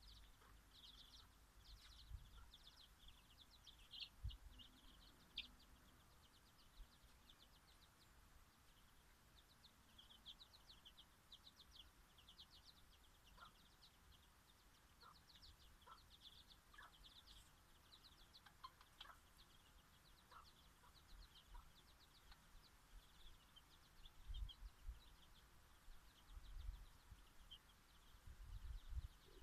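Faint, steady run of short, high bird chirps and cheeps, with a few low thumps near the end.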